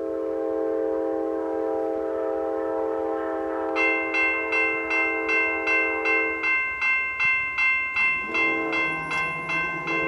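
An approaching train's air horn sounds a long blast, breaks off, then sounds again about eight seconds in. About four seconds in, the crossing's GS Type 2 E bell starts ringing steadily, about two and a half dings a second.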